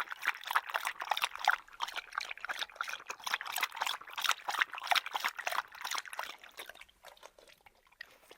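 Water trickling: a dense, irregular run of small splashes that thins out near the end and stops.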